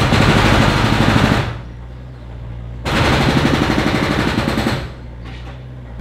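Demolition machinery working rubble and masonry: two loud bursts of rapid, machine-gun-like rattling strikes, the first at the start and the second about three seconds in, each lasting under two seconds. An engine runs steadily underneath.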